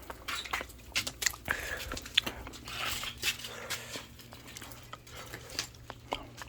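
Irregular sharp clicks and crunching as roasted oyster shells are handled, pried open and eaten.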